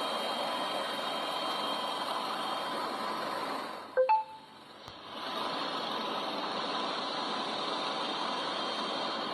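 Helicopter engine and rotor noise, steady and even. About four seconds in it dips briefly and two short, loud blips sound before the steady noise returns.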